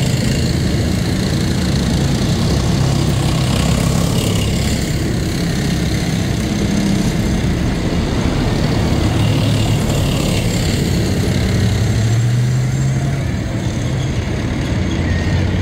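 Heavy military vehicles driving past one after another, their engines running loud and steady.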